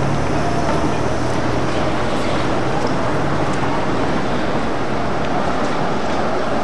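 Steady street traffic noise with a Düwag articulated tram rolling toward the listener on its rails.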